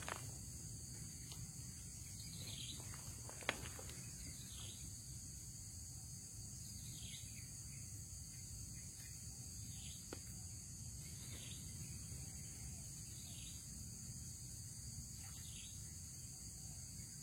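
Outdoor ambience of steady insect trilling with a low background hum. A short falling call repeats about every two seconds, and there is one sharp click about three and a half seconds in.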